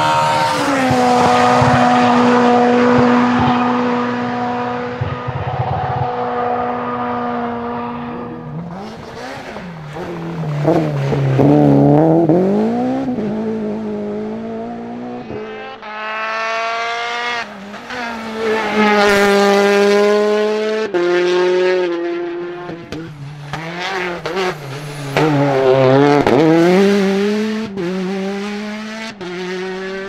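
Rally car engines at stage speed as cars pass one after another: a steady high note held for about eight seconds, then revs rising and falling again and again through gear changes and braking.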